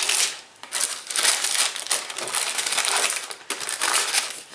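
Wrapping paper inside a beauty box crinkling and rustling as it is handled and pulled aside, in long stretches with two brief pauses.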